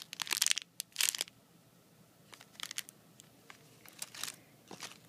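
Clear plastic wrapping crinkling as a wrapped squishy toy is handled and squeezed: several loud rustles in the first second or so, then scattered fainter crinkles.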